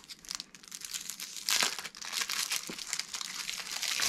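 Cellophane wrapper of a 1985 Topps baseball-card cello pack crinkling and crackling as it is torn open by hand and pulled off the cards, the crackle getting louder about one and a half seconds in.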